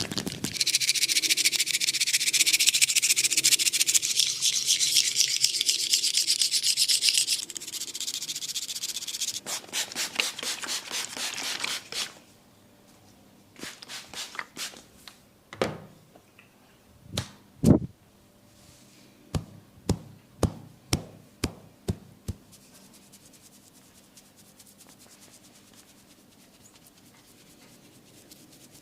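Close-up massage sounds: several seconds of hard, fast rubbing and scratching on skin and hair, then a quicker patter of strokes, then a run of separate sharp slaps or taps, about two a second.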